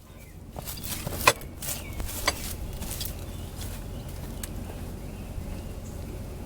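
A few sharp metallic clicks and clinks of a socket and ratchet being handled and fitted, the loudest about a second in, over a steady low background rumble.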